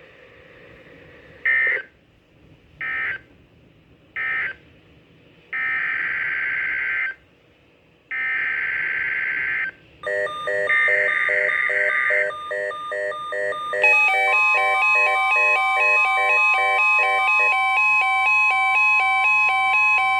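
NOAA Weather Radio digital SAME data bursts: three short end-of-message bursts, then three longer header bursts announcing the next alert. The receiver then sets off a pattern of alternating electronic alarm beeps, and about 14 s in the steady 1050 Hz weather-radio warning tone starts underneath them.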